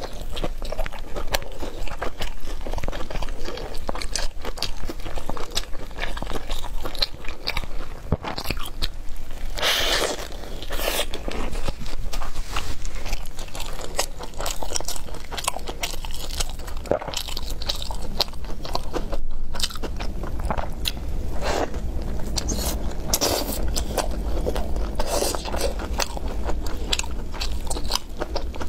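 Close-miked eating of a loaded shouzhuabing (Chinese flaky hand-held pancake): repeated crunchy bites and chewing.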